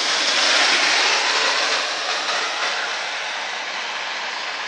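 Heavy rain pouring down, a dense steady hiss that slowly grows quieter.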